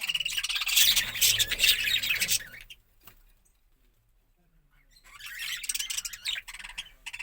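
A flock of budgerigars chattering and chirping. The chatter is dense for about two and a half seconds, breaks off for about two seconds, then starts up again.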